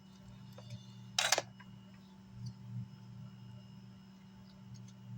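Steady low electrical hum with faint ticks of tools on a workbench, and one short sharp scraping click about a second in.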